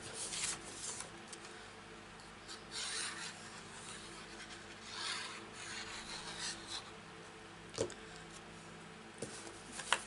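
Cardstock being handled, sliding and rubbing against the card front and the craft mat: a few soft swishes and a small tap near the end, over a faint steady hum.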